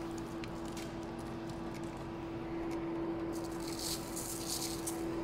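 Steady electrical hum from kitchen equipment, with faint handling clicks and a few soft rustles from about three and a half seconds in.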